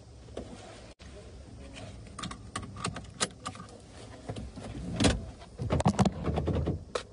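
Clicks, knocks and rustling of a phone being handled and swung about inside a car, busiest about five to six seconds in.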